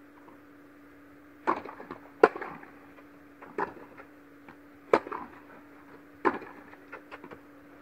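Tennis rally: a tennis ball struck back and forth with rackets, sharp pops about every 1.3 seconds with smaller bounce knocks between them, echoing in an indoor tennis hall. A steady low hum runs underneath.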